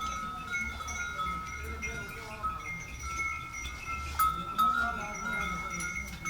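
Small metal bells on farm animals ringing continuously in overlapping tones, with a few sharper clinks about four seconds in, over a low rumble.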